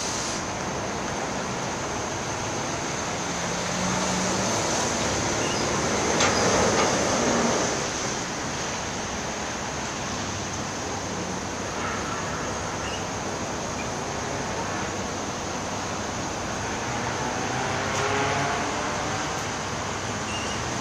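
Steady rumble and hiss of vehicles with a thin high whine over it, growing louder for a moment about six seconds in and again near the end.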